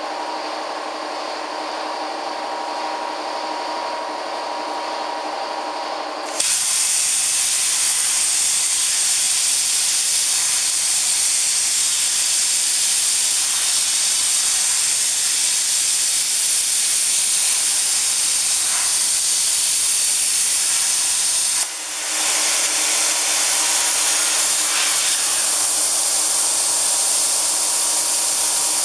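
CNC oxy-fuel cutting torch: a steady hum of several fixed tones, then about six seconds in a loud, sudden hiss as the cutting oxygen jet comes on. The hiss dips briefly about 22 seconds in and then resumes, with the hum back underneath it.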